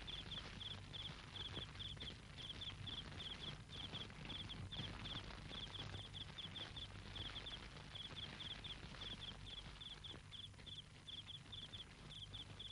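Crickets chirping: faint, short high chirps repeating every half second or so, over a low steady hum.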